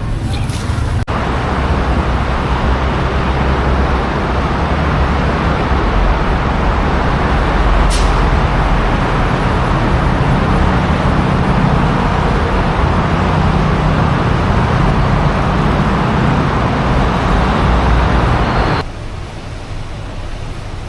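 Loud city road traffic: a dense wash of engine rumble and road noise. There is a short sharp hiss or click about eight seconds in. The sound drops abruptly to a quieter traffic hum near the end.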